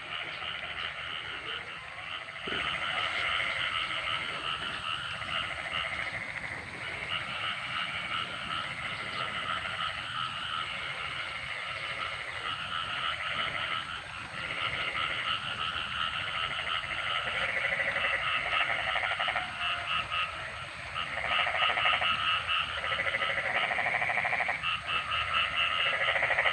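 Chorus of frogs calling: many overlapping trains of rapid pulsed croaks, in bouts of a second or two that start and stop again and again.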